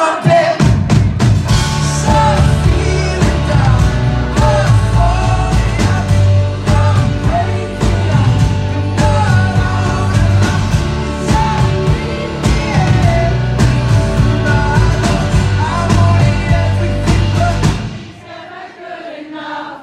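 Live band playing a song's loud closing section, with heavy drums and bass and melodic lines over them. The music stops abruptly near the end.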